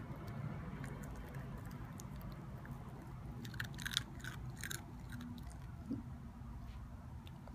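Mini Australian Shepherd puppy chewing a dry Cheerio, with a quick run of crisp crunches about halfway through.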